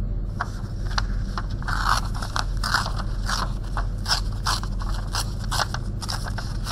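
A sheet of printed paper being torn by hand in a run of short, irregular rips, tearing a portrait out along its outline.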